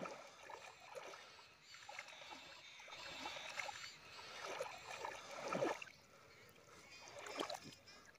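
Water sloshing and splashing as a person swims in a pond, with a few louder splashes, the loudest about five and a half seconds in.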